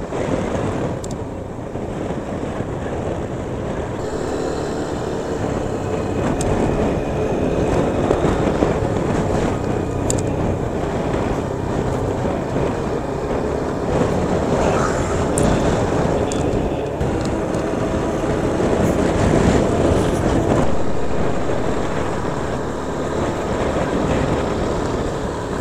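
Heavy wind noise buffeting a helmet chin-mounted camera's microphone while riding a motorcycle, with the engine running underneath it.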